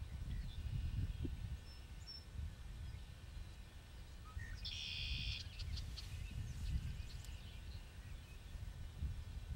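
Low, uneven rumble of wind on the microphone in a marsh, with a distant songbird giving one short, high trill about five seconds in and a few faint chips after it.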